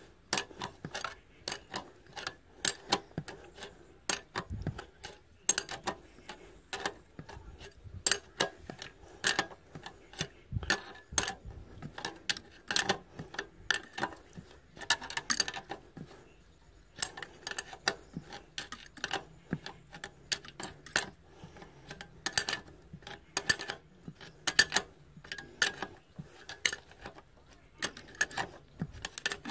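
Irregular metallic clicks and taps of an adjustable wrench working a fuel-line fitting on a stopped Petter diesel engine, with short pauses between bursts.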